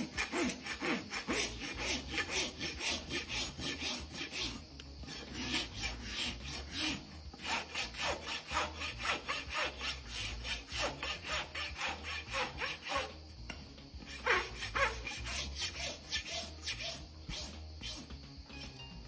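Farrier's rasp filing a horse's hoof in quick, repeated scraping strokes, about two to three a second.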